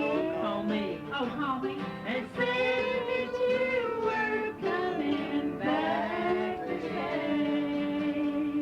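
A country song with a sung voice over instrumental backing, played back from an old home-recorded cassette tape.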